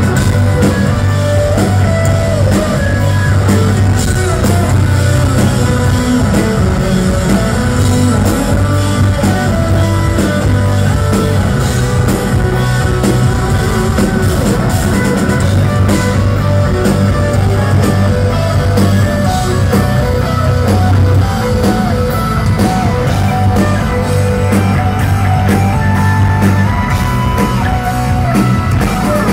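Live rock band playing loud and without a break: electric guitars and bass over a drum kit, heard from the audience floor.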